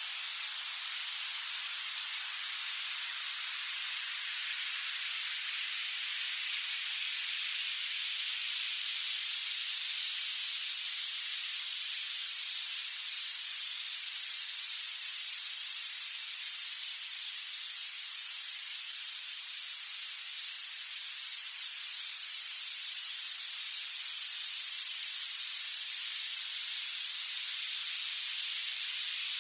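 Violet noise: a steady, even hiss weighted heavily toward the highest frequencies, with no low end at all.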